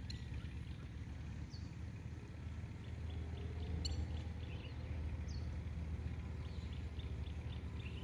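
Small birds chirping in runs of short repeated notes, with a couple of quick downward-sweeping calls, over a steady low rumble.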